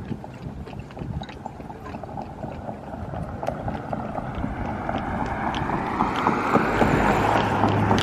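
A car coming along the road, its tyre and engine noise swelling and rising in pitch to a peak near the end, over a run of short ticks from footsteps on paving.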